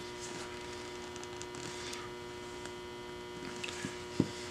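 Steady electrical mains hum, with a few faint ticks and one sharp click near the end.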